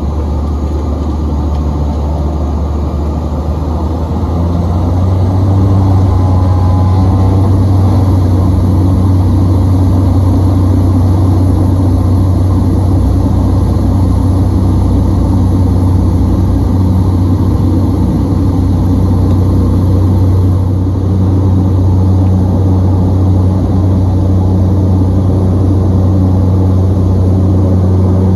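A motor engine running steadily with a deep drone; it builds up about four to five seconds in, then holds at a constant pitch and level.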